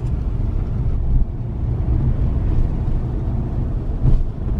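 Steady low rumble of a truck driving, heard from inside the cab, with a brief bump about four seconds in.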